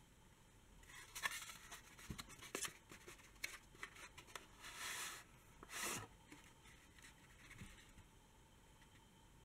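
Faint handling noise of a corrugated cardboard case: scattered taps and scrapes, then two longer swishes about halfway through as a hard drive slides out of the cardboard sleeve.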